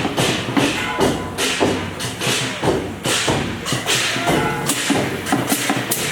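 Temple procession percussion, drums and cymbals, struck in a busy, irregular rhythm with the cymbals ringing on after each crash.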